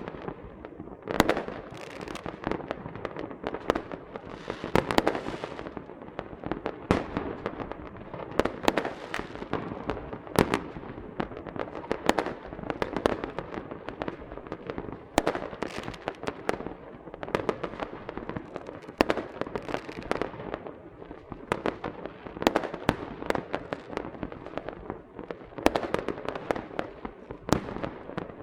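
Small fireworks and firecrackers going off: a steady stream of crackling with many sharp bangs and pops at irregular intervals, several a second at times.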